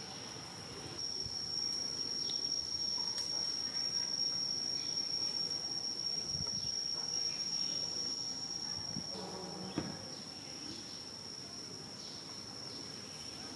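A steady, high-pitched drone of insects, rising in level about a second in and easing back near the ten-second mark. A brief lower sound with a few stacked pitches cuts in shortly before the drone eases.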